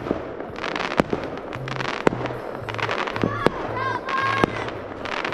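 Fireworks going off around the neighbourhood: a string of sharp, irregularly spaced bangs and cracks over a steady crackling haze.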